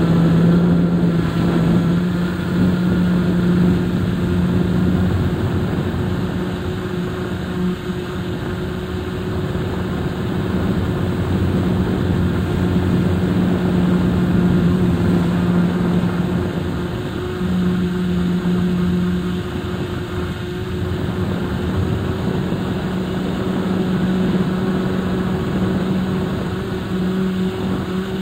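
XK X251 drone's motors and propellers humming steadily, recorded by the camera mounted on it, with the pitch shifting up and down a little as the throttle changes.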